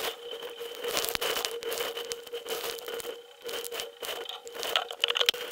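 Rain and gusting wind striking the camera in a thunderstorm: a fluctuating rushing hiss with many irregular crackling clicks from drops hitting the camera. A faint steady whine runs underneath.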